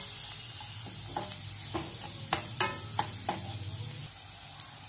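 Chopped onion, green chillies and spices frying in oil in a stainless steel kadhai, with a steady sizzle, while a spatula stirs and scrapes them, striking the pan about seven times, some strikes ringing briefly.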